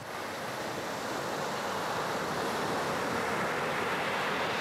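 Steady rushing noise of surf breaking, swelling gently and then easing off.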